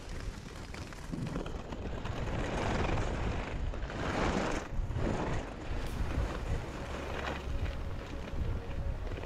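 Wind buffeting a GoPro action camera's microphone while skiing downhill, with skis hissing and scraping over the snow. The rush swells and fades in irregular surges.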